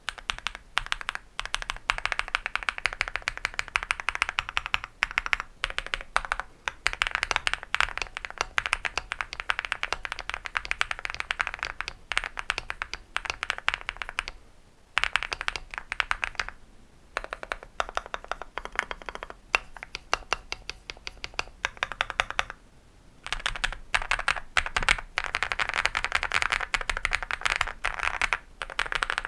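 Creamy-sounding typing on an EPOMAKER x Feker Galaxy80 mechanical keyboard with light 28 g MMD Vivian linear switches and XDA-profile PBT keycaps: fast, dense runs of keystrokes broken by a few brief pauses, about halfway through and again about three-quarters of the way in.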